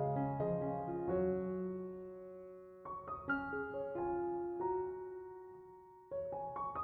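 Gentle background piano music: sustained chords that fade, with new notes struck about three seconds in and again near the end.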